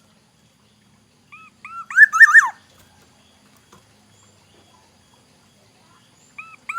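Black-naped oriole singing: a fluty phrase of two short hooked whistles, then a quick run of looping notes that drops in pitch at the end. The same phrase starts again near the end.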